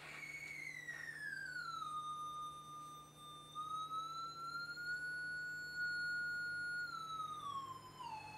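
Electronic feedback tone from a CRT monitor synth: the monitor's green, blue and horizontal and vertical sync signals run through an audio mixer and back into the CRT, played over speakers. One buzzy tone with overtones slides down in pitch, holds, drifts slightly up and holds, then falls again near the end, like a slow siren.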